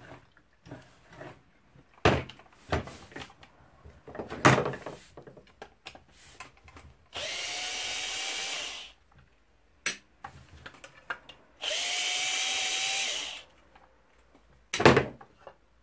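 Handheld power drill-driver run twice, about two seconds each, with a motor whine that rises slightly in each run. Sharp knocks and clinks of tools and parts being handled come between the runs.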